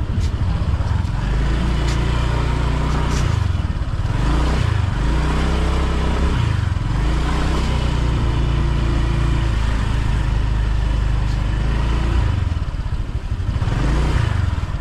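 Small motorbike engine running, speeding up and easing off several times, with a steady rush of wind noise over it.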